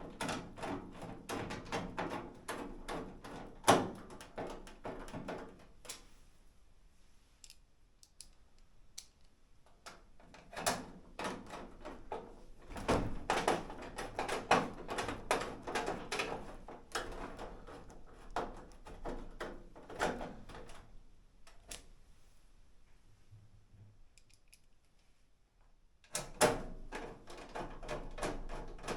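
Rapid, irregular clicking, tapping and clattering of small screws and sheet-metal dryer panel parts being handled and screwed in by hand, in three busy stretches separated by quieter pauses.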